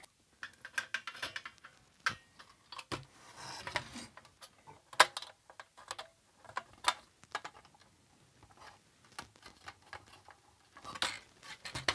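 Irregular light clicks and taps of sheet-metal parts and a circuit board being handled and fitted together, the loudest click about five seconds in, with a brief soft rasp about three and a half seconds in.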